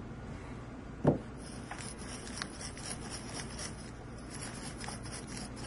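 A thump about a second in, then a soldering iron's tip being scraped and jabbed in brass wire tip-cleaning wool: a fine, crackly scratching of many small ticks.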